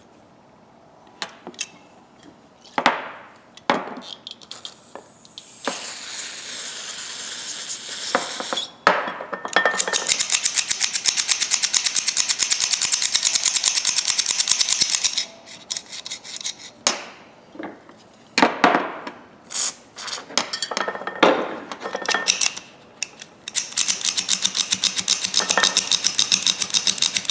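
Steel slip-joint pliers being handled and worked at the bench: scattered metal clinks and knocks, then two long stretches of fast, even metallic clicking or scraping.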